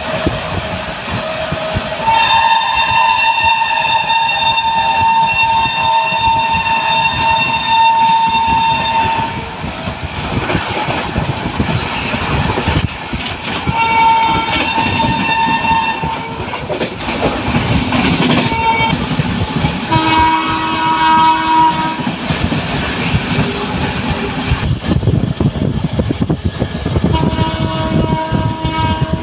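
Train running on the rails, heard from inside a coach, with a train horn sounding four times: one long blast about two seconds in that lasts some seven seconds, then three shorter blasts around the middle and near the end.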